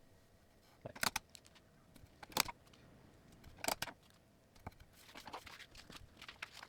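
Printed paper sheets and clear sticky tape being handled while the sheets are taped together: a few short rustles and crackles a second or so apart, then a busier run of small ones near the end.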